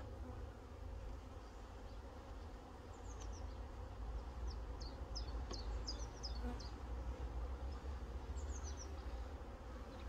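Honeybees buzzing steadily around an open hive, with a few short, high chirps coming and going.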